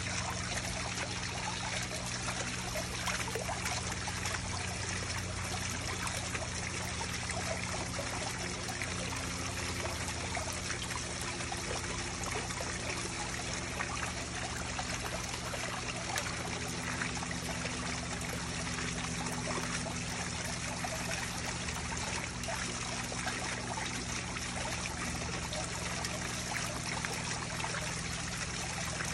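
Water splashing and trickling into a koi pond: thin streams falling from a spillway ledge and a fountain jet splashing at the surface, running steadily, with a steady low hum underneath.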